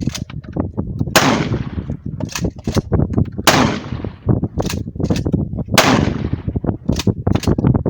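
Three rifle shots about two and a half seconds apart, each loud crack followed by a ringing echo that trails off over about a second. Fainter sharp cracks fall in between.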